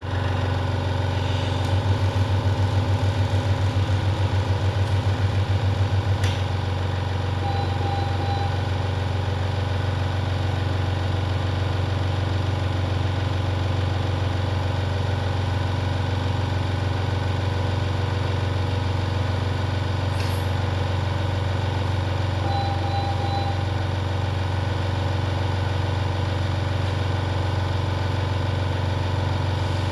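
Neonatal ventilator running with a steady low machine hum, with a quicker pulsing beat over it for the first few seconds. Two faint short beeps come, one about eight seconds in and one about twenty-three seconds in.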